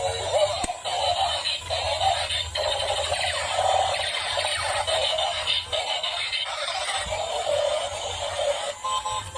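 Background music with an electronic-sounding singing voice and a steady low bass.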